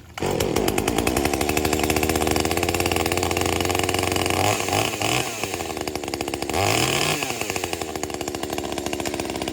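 Husqvarna two-stroke chainsaw running steadily, then revved up and back down briefly about halfway through and again a couple of seconds later.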